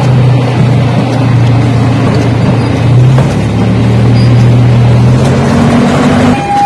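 Mini railroad train's engine running with a steady low drone, heard from an open-sided passenger car; its pitch shifts about three seconds in and rises near the end.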